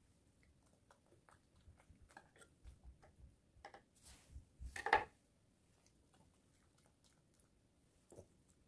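Maltese dog chewing soft cake fed from the hand: a run of small, faint clicks and smacks over the first five seconds. A louder scrape comes just before five seconds in, from a knife cutting on the wooden board.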